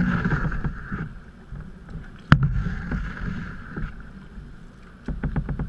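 A canoe being paddled: the paddle swishing and splashing through the water in strokes. There is a sharp knock a little over two seconds in and a quick run of small clicks near the end.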